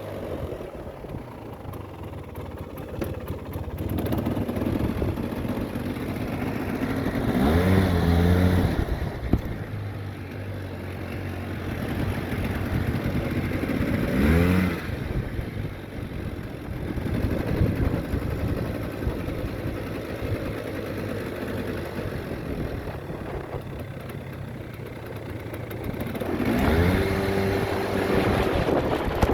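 Vintage Polaris 400 4x4 two-stroke ATV engine running under way, revving up hard three times: about eight seconds in, about fourteen seconds in, and again near the end.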